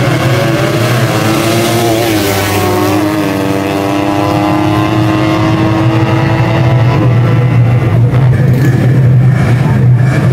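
Drag-racing motorcycle engines revving, with the pitch swinging up and down, then held at one steady high pitch for several seconds before dropping away, all over a steady low drone. Near the end it turns noisier and a little louder.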